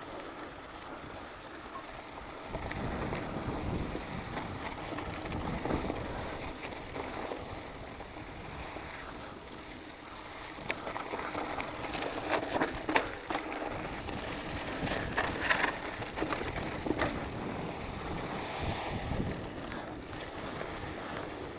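Mountain bike riding down a rocky, sandy trail: wind rushing over the handlebar-mounted camera's microphone and tyres running over loose dirt, with the bike rattling. Sharp knocks from rocks and bumps come often in the second half.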